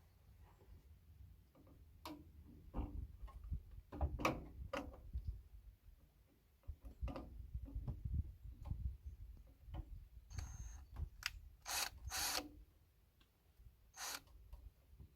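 Tools and hardware being handled: irregular clicks and knocks over a low rumble, with a few short noisy bursts near the end.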